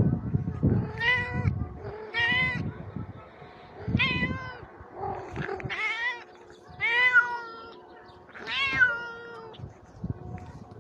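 Domestic cat meowing repeatedly, about six separate meows, each rising then falling in pitch, with low thumps near the start.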